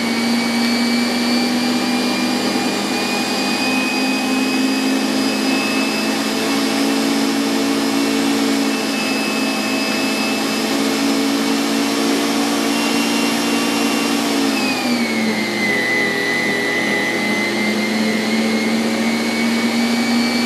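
Bosch Universal Plus kitchen machine's motor running steadily with a whine, driving the meat grinder's auger to push pasta dough out through a spaghetti die. The whine dips slightly in pitch about fifteen seconds in.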